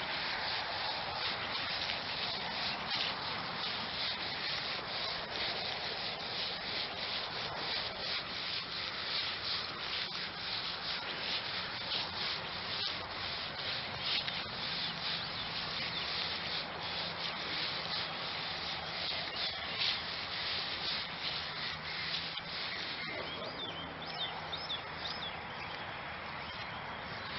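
Steady rustling and rubbing noise of footsteps swishing through grass, with handling rub on the camera's microphone as it is carried on foot. The rustle softens a little near the end.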